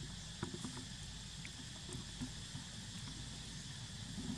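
Steady high insect drone, with a few faint ticks and rustles of dry leaves scattered through it over a low steady rumble.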